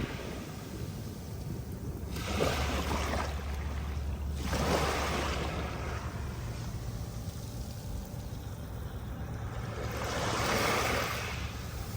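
Small sea waves breaking and washing up the beach: three swells of surf noise, one about two seconds in, one about four seconds in and one near the end, over a low steady rumble.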